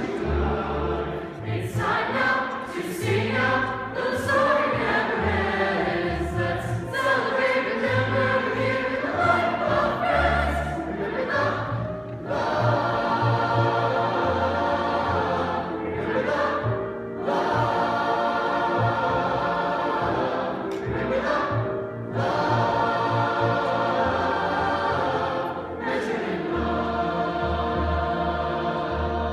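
Mixed youth choir singing in parts, with sustained chords over held low notes from the accompanying orchestra.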